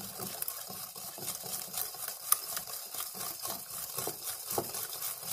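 Wire whisk beating eggs into batter in a ceramic mixing bowl: a rapid, steady clicking of the wires against the bowl.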